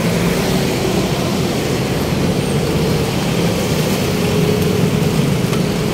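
Street traffic: nearby vehicle engines running, a steady low drone.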